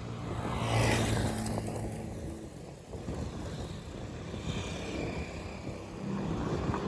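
A motor vehicle passes close by, its engine and tyre noise swelling to a peak about a second in and then fading, with road traffic running on.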